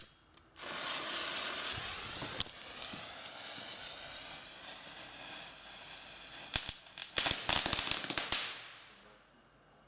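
Keller "Flashing Lights" small ground firework burning: a hissing spray of sparks starts about half a second in, with a single crack early on. Near the end comes a quick run of sharp, loud cracks, then it dies away.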